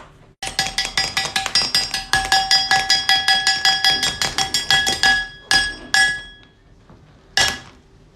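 Rapid chopping of candy with a knife, about six or seven sharp strikes a second with a ringing, metallic tone. After a pause come three single chops.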